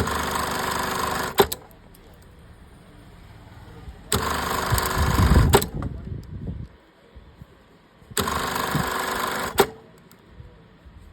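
Industrial lockstitch sewing machine running in three short bursts of stitching, about a second and a half each and about four seconds apart. Each burst ends in a sharp click, and there is some lower knocking during the middle one.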